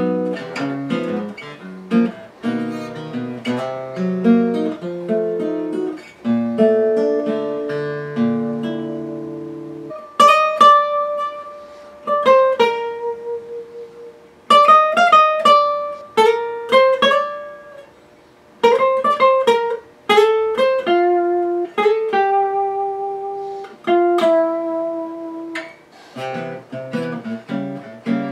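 1929 Gibson L5 carved-top archtop guitar played acoustically: chords for the first ten seconds or so, then a picked single-note melody with ringing notes, going back to chords near the end.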